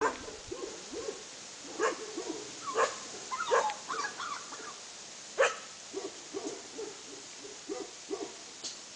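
Young Romanian Mioritic shepherd dogs whining and yipping in many short, repeated calls, with a few sharper yelps.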